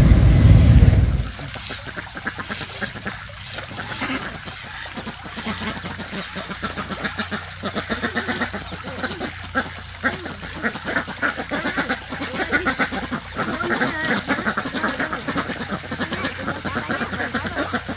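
Loud street traffic noise, with motorbikes, for about a second before it cuts off abruptly. Then comes a continuous, rapid chatter of many farmyard birds calling.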